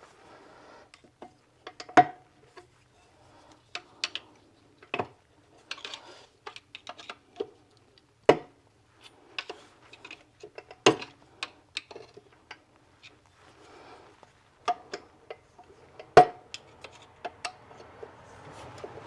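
Irregular metallic clicks, clinks and knocks of hand tools and metal motor parts being handled. Four louder knocks ring briefly.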